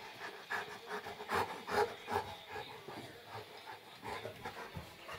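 Saint Bernard panting in quick, irregular breaths, loudest between one and two seconds in.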